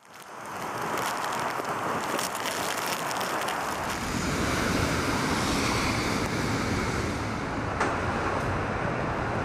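Storm wind from a typhoon, a steady loud rushing that gusts and buffets the microphone.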